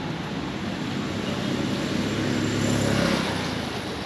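A motor vehicle passing on the road: engine hum and road noise swell to a peak about three seconds in, then fade away.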